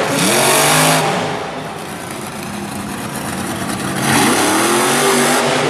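Monster truck engine revving hard, with rising and falling pitch. It is loud at the start, eases off for a couple of seconds, then revs up again about four seconds in.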